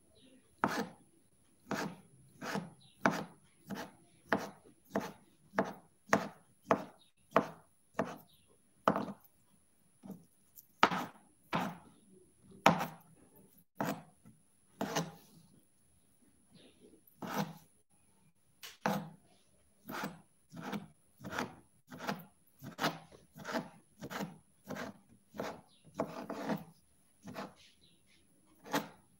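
Kitchen knife slicing chicken sausage into pieces on a cutting board: an irregular run of sharp knocks of the blade meeting the board, about one or two a second, with a few short pauses.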